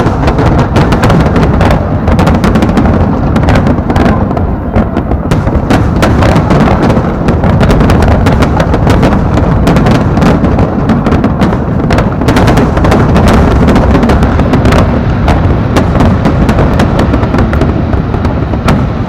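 Fireworks display at full intensity: a dense, continuous barrage of aerial shell bursts, many booms and sharp pops overlapping into a steady low rumble.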